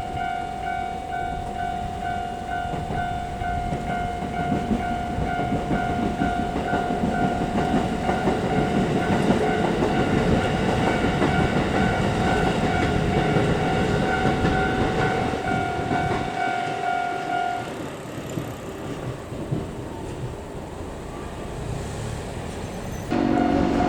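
Railway crossing alarm ringing its steady, repeated electronic bell while a Keikyu Line train passes with a swelling rumble and clatter of wheels on rails. The bell stops about 18 seconds in as the rumble dies away, then starts again suddenly near the end, joined by a new steady lower tone.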